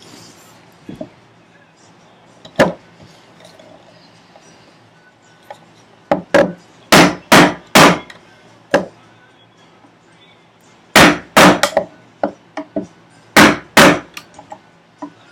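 A chisel struck repeatedly, chopping out a housing dado in wood: about a dozen sharp blows in quick runs of two to four, with lighter taps in between.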